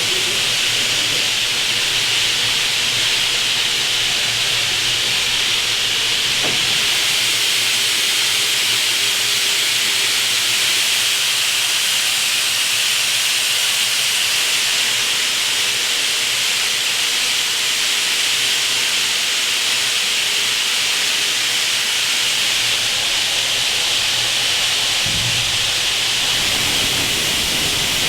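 Steam escaping from the South African Class 26 4-8-4 steam locomotive with a steady, unbroken hiss, its boiler under steam for a steam test.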